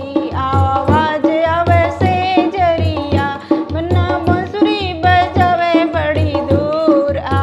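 A woman singing a banna geet, a north Indian folk wedding song, in a wavering, ornamented voice, with a hand drum keeping a steady beat underneath.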